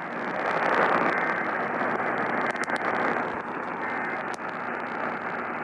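Steady radio static: a weather radio receiver hissing with no broadcast coming through, with a few faint clicks.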